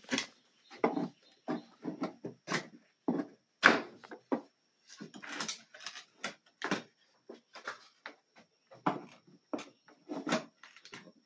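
Wooden shake siding being pried off a wall with a small pry bar: a run of irregular short knocks and cracks of wood, the loudest about a third of the way through.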